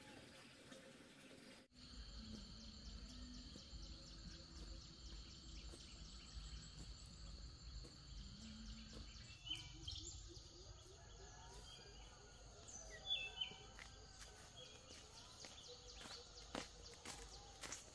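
Faint rural outdoor ambience: a steady high insect drone, with a few short bird chirps about halfway through.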